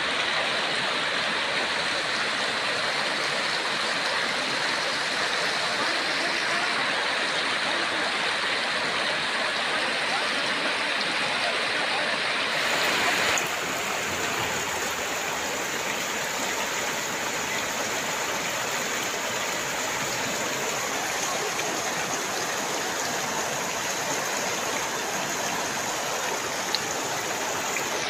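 Shallow, fast-flowing stream water rushing and splashing over rocks and pebbles in a steady rush. It drops slightly in level about halfway through.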